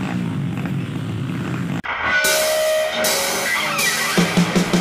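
Dirt-bike engines running on a muddy trail, cut off abruptly about two seconds in by rock music with guitar and drums.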